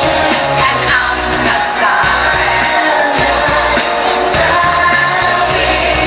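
Live pop-rock concert music: a woman singing over a band with electric guitar, recorded loud from among the arena audience.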